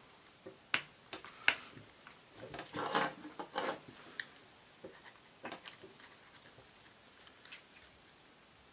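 Plastic handling sounds from a Glock 22 Gen 4's polymer grip and beavertail backstrap as the backstrap pin is worked in from the side: a few sharp clicks, then a longer scraping rub about three seconds in, and lighter ticks after.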